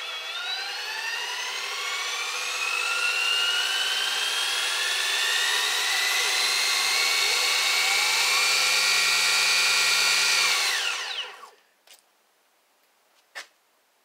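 A CYC X1 Pro gen 1 mid-drive e-bike motor and its gearbox spinning freely with no load. The whine of several tones rises in pitch as it revs up, running sensorless with field weakening, then holds at top speed. About eleven seconds in it winds down quickly and stops, followed by a couple of faint clicks.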